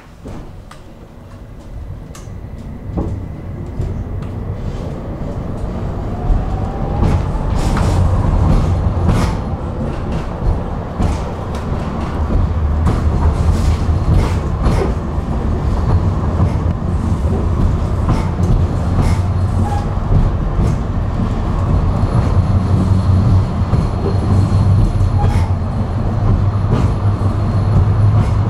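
Electric tram pulling away and gathering speed: a motor whine rises in pitch over the first several seconds. It then runs on steadily with a low rumble and scattered knocks from the track.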